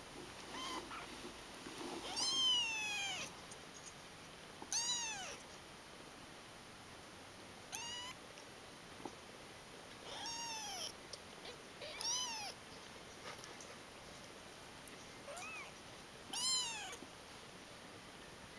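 Ten-day-old kittens mewing: about seven thin, high cries spread a couple of seconds apart, each rising and then falling in pitch. The first and the last are the loudest.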